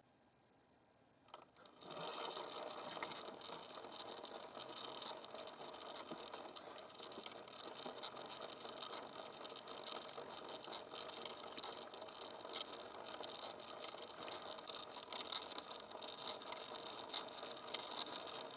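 BRX01 RC crawler's electric motor and geared drivetrain running, a faint steady whir with fine rattling and clicking that starts about two seconds in.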